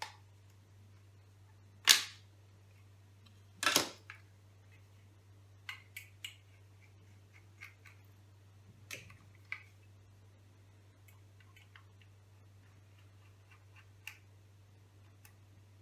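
Clicks and knocks from hands and a screwdriver working on a laptop's underside while opening the hard disk bay: two loud knocks about two and four seconds in, then scattered lighter clicks, over a faint steady low hum.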